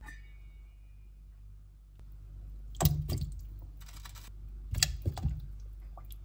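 Kitchen handling sounds at a stainless-steel stockpot of water: a few sharp knocks and clinks about three seconds in and again around five seconds, over a low steady hum.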